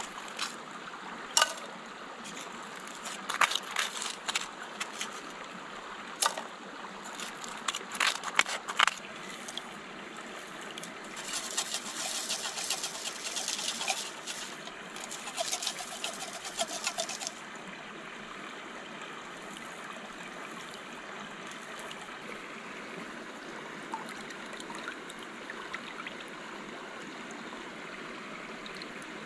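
For the first nine seconds or so, stones clink and scrape as creek sand is dug by hand from between rocks. Then water splashes and sloshes as a small cook pot is dipped and swirled to wash the sand. A creek runs steadily underneath.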